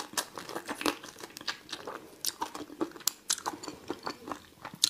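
Close-miked crunching and chewing as a person bites and chews a raw, shell-on prawn. The shell and legs crack in many sharp, irregular crunches.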